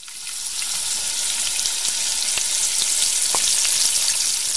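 Battered strips deep-frying in hot oil in a wok: a steady, dense sizzle with scattered small pops, fading in at the start.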